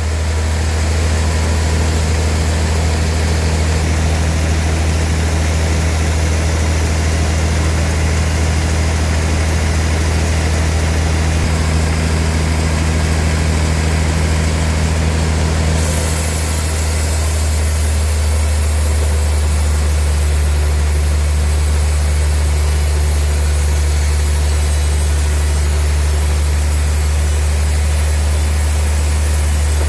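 Sawmill machinery running steadily: a loud, deep engine-like hum with a hiss above it, its higher part shifting about sixteen seconds in.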